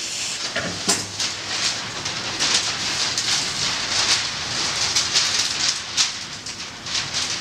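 Close rustling and rubbing of cloth: fabric and clothing being handled during hand sewing, an irregular scratchy noise with small clicks.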